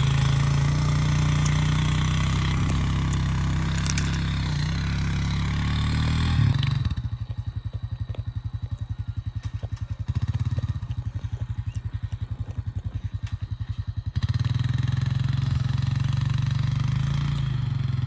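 ATV (quad bike) engine running: a steady drone at first, then about seven seconds in it drops to a quieter, rapid, even chugging, and a couple of seconds before the end it returns to the steady drone.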